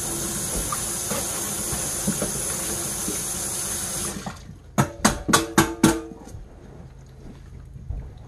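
Kitchen sink tap running while a fork is rinsed; the water shuts off about four seconds in, followed by a quick run of about six sharp knocks.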